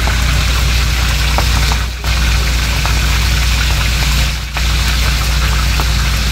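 Croaker fish deep-frying in a wok of hot oil: a steady sizzle with small crackles, over a loud, steady low hum.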